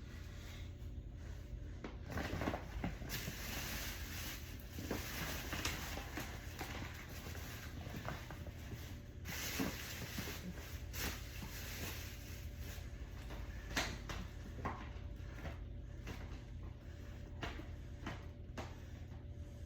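Rummaging through a cupboard or drawers: scattered knocks, clatters and rustling as things are moved about and shifted. A steady low hum sits underneath.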